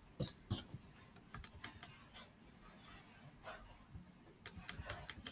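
Faint, irregular clicking from computer controls, a scattering of soft single clicks with a few short runs of them.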